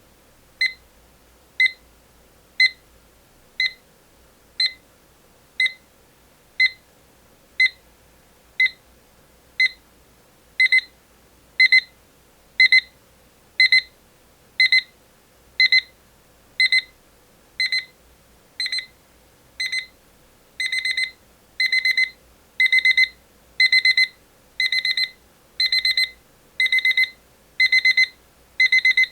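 Rhythm 8RZ195-023 alarm clock's alarm sounding: a high beep about once a second. About ten seconds in the beeps grow longer, and about twenty seconds in each one becomes a rapid burst of beeps, a stepped alarm that escalates as it keeps ringing.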